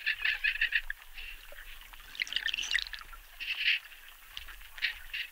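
Dolphins underwater giving bursts of rapid pulsed clicks, in about four separate groups, with short single bursts near the end.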